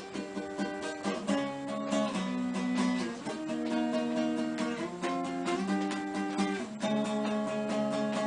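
Acoustic guitar playing a chord progression, the chords changing every second or two.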